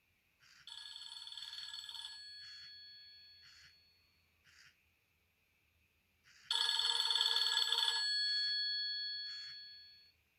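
Nokia N70 mobile phone playing a bell-like ringtone through its small loudspeaker. There are two rings about six seconds apart, each a rapid trill of about a second and a half that then fades out slowly. The second ring is louder.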